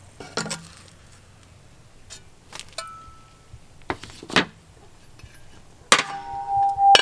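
Metal clinks and clacks of tongs and a Dutch oven as roasted peppers are moved into the pot, a few separate strikes, then a louder clank near the end that rings on briefly.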